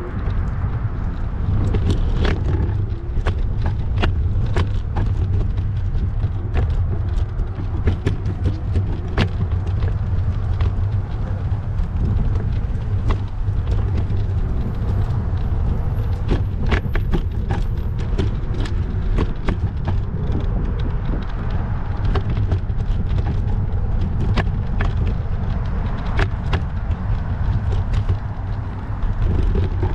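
Riding noise on a bicycle-mounted or handheld camera: a steady low wind rumble on the microphone with many scattered clicks and rattles throughout.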